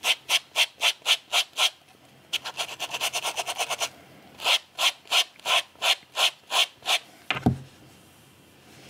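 Cat brush raked in short strokes over a plush's fur along a leg seam, pulling out the fur trapped in the seam: about four strokes a second, a faster run in the middle, then a low thump near the end before it stops.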